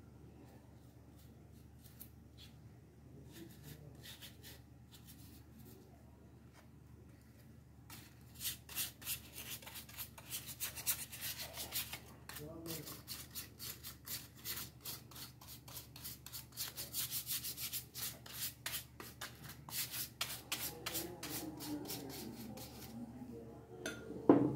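Quick, repeated rubbing strokes of a small hand tool across a plywood cutout. The strokes are sparse at first and become a dense, scratchy run from about eight seconds in, with a knock as the piece is handled near the end.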